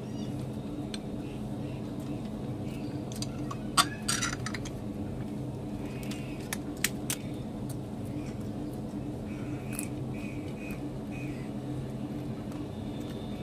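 Eating by hand at a table laden with dishes: a few sharp clinks and crackles, loudest about four seconds in and again around six to seven seconds, over a steady low hum.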